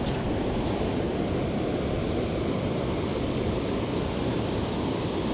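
Steady rushing of water pouring through a dam spillway into the river, an even roar with no breaks.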